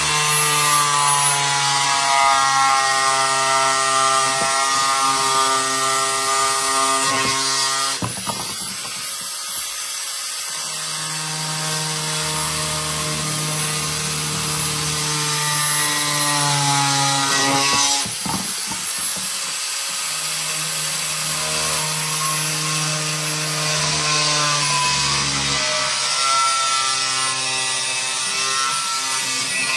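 Angle grinder converted into an oscillating multi-tool, running and cutting into a wooden board: a steady motor whine with a grating cutting noise. The pitch changes twice, about eight and eighteen seconds in, as the tool is eased off and pushed back into the cut.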